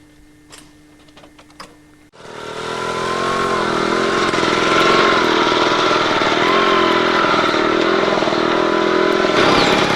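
A small engine running hard, its pitch rising and falling as the revs change. It cuts in suddenly about two seconds in, after a few faint clicks.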